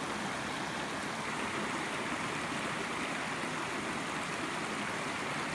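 Small mountain creek running over rocks and through riffles: a steady rush of flowing water.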